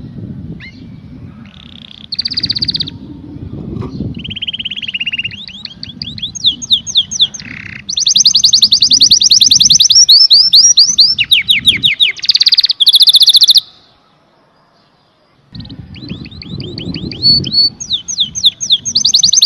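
Domestic canary singing: long runs of rapid, high-pitched trills and rolls. The song breaks off into a brief silence a little past the middle, then starts again.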